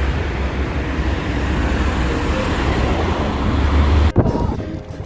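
Wind buffeting the microphone outdoors: a steady low rumble with a hiss over it, cut off abruptly about four seconds in.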